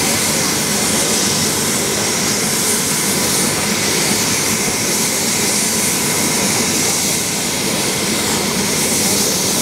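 Light turbine helicopter running on the ground with its two-bladed main rotor turning: a steady engine and rotor rush with a thin high turbine whine held on top.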